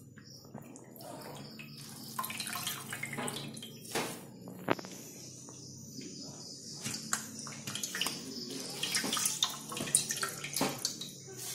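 Slices of bread being dipped in water and squeezed out by hand, with splashing, dripping and small handling clicks.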